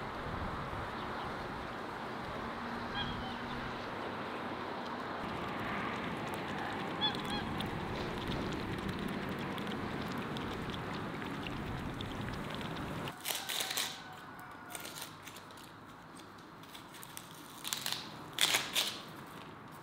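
Farmyard ambience: a steady outdoor hiss with occasional faint honks and calls from domestic geese and Muscovy ducks. After about thirteen seconds it cuts to a quieter room, where a knife peeling an onion makes scattered sharp clicks and scrapes.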